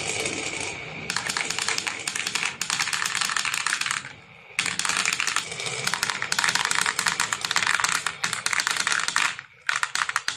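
Many marbles clattering and rolling down a marble run, a dense stream of rapid clicks and clacks that thins out briefly about four seconds in and again near the end.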